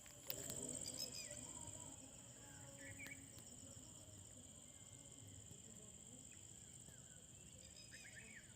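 Faint bird chirps, short and scattered, over a steady high-pitched insect drone.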